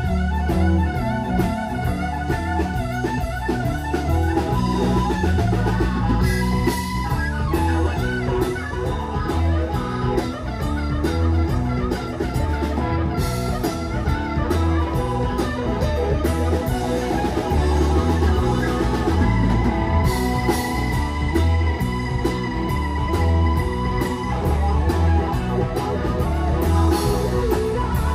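Live blues-rock band playing with no vocals: electric guitar over a drum kit.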